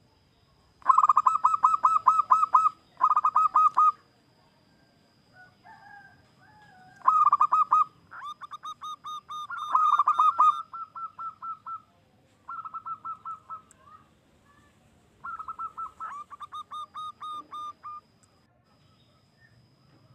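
Zebra dove (perkutut) singing its cooing song: phrases of rapid, evenly spaced staccato notes, each phrase lasting one to three seconds, repeated about six times with short pauses between.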